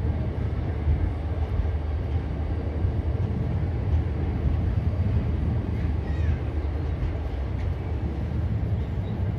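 Train running, a steady low rumble with no distinct knocks or horn.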